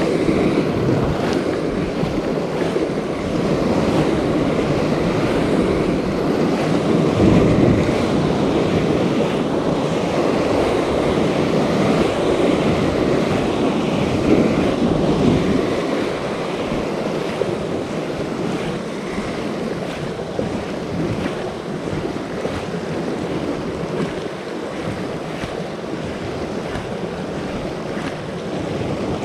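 Sea waves surging and washing over shoreline rocks, with wind buffeting the microphone. It is louder through the first half and eases a little about halfway.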